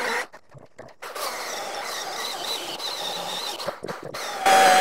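Milwaukee M18 cordless chainsaw running as it cuts into a log from about a second in. Near the end it gets louder, a whine whose pitch wavers as the saw works under load.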